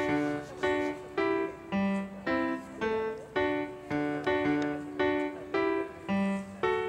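Background music: a gentle piano-like melody of evenly paced single notes, about three a second, each ringing briefly and fading.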